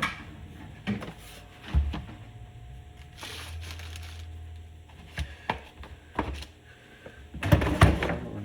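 Hand tools being handled and set down: scattered metal clinks and knocks, with a low rumble in the middle and a louder flurry of clatter near the end.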